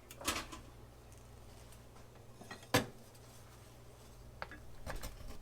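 Kitchen utensils knocking and scraping against a skillet as the pan is deglazed with broth, with one sharp clack nearly three seconds in.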